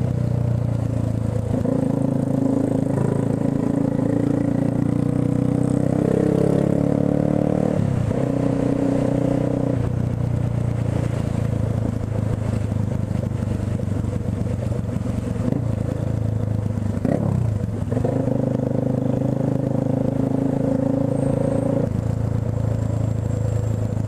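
Yamaha motorcycle engine running at low revs while the bike filters slowly through traffic. The note rises and falls with the throttle and drops away briefly a few times, with a falling-then-rising glide about two-thirds of the way through.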